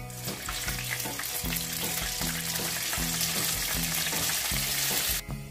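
Cornstarch-coated chicken wings sizzling loudly in hot deep-frying oil during their second fry; the sizzle cuts off sharply near the end. Background music with a steady bass pattern plays underneath.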